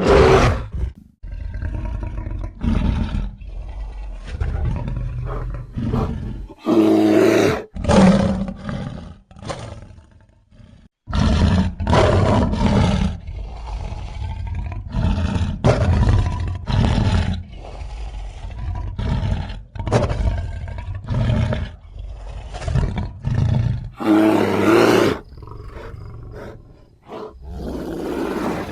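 A series of bear roars and growls, edited from grizzly bear recordings into the voice of an invented creature. The calls come one after another with short breaks, and there are quiet gaps about a second in and again around ten seconds in.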